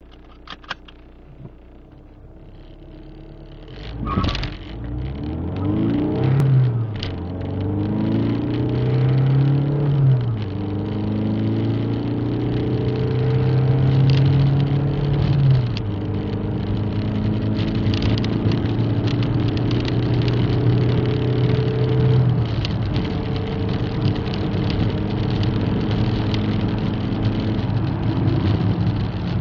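Audi A3 1.9 TDI (AGR) four-cylinder turbodiesel, heard from inside the cabin, idling quietly for about four seconds and then accelerating hard from a standstill. The engine note climbs in each gear and drops back at each of several gear changes.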